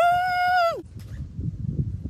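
A boy's loud, high-pitched yell that rises, holds one note for under a second, then drops away. Quieter low rumbling and knocks follow.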